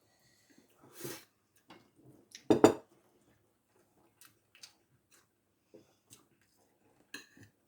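Scattered clinks and taps of cutlery against dishes while eating, with one louder knock about two and a half seconds in.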